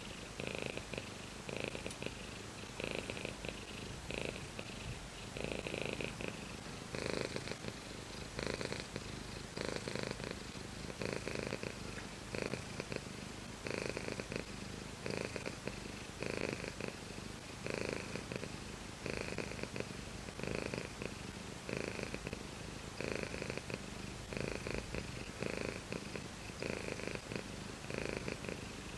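Domestic cat purring steadily, the purr swelling and easing in even pulses about once a second.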